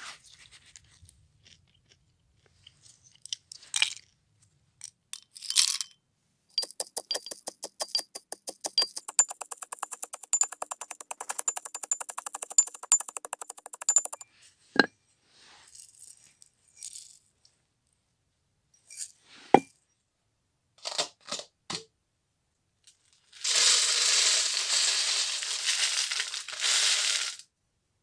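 Walnut shells being crushed with a pestle in a mortar: a run of quick, evenly repeated crunching strokes lasting several seconds, then a few single knocks. Near the end comes a louder, steady scraping rustle of about four seconds.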